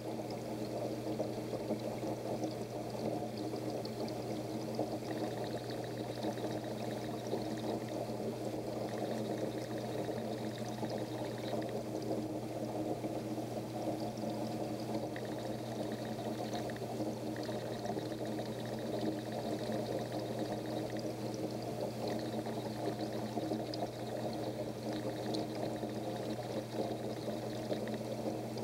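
Aquarium filter running: a steady rush of pouring, splashing water over a constant low hum.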